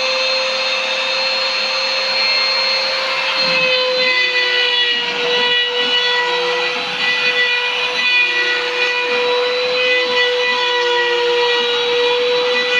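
CNC machine running: the spindle gives a steady high whine over a rough cutting noise. Shorter, lower tones come and go every second or so as the machine moves.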